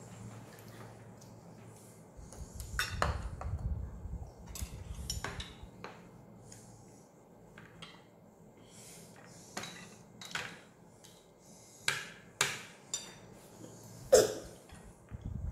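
Spoons and forks clinking and scraping against plastic and ceramic plates and bowls during eating, a series of separate clinks with the sharpest about fourteen seconds in. Dull low bumps against the table come about three seconds in.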